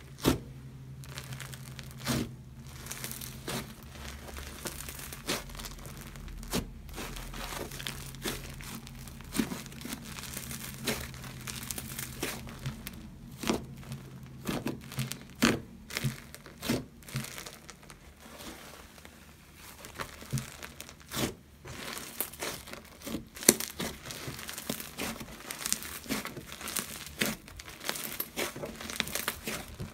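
Hands squeezing, poking and stretching a yellow slime, making irregular sharp clicks and pops from trapped air with a soft crackle in between.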